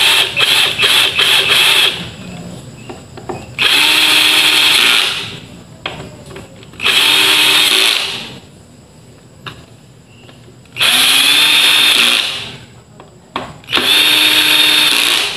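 Cordless drill-driver driving screws in five short runs, each about a second long. The motor whirs and winds down each time the trigger is let go. The first run is choppy, in several quick stops and starts. The driver's clutch is adjustable, so each screw is driven to the same tightness.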